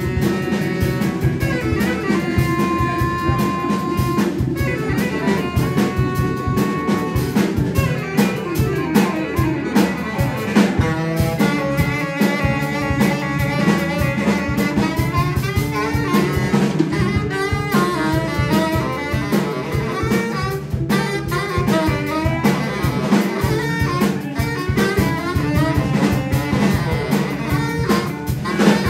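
Live jazz band playing: a saxophone leads, holding some long notes and running through moving lines, over a Ludwig drum kit, electric guitar and bass.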